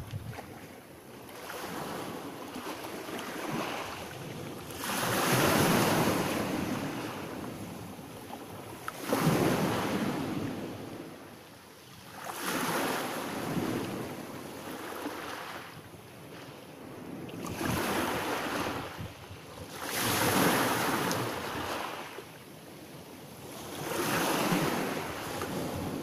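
Small sea waves breaking and washing up a pebble beach, each surge swelling and fading, about every three to four seconds.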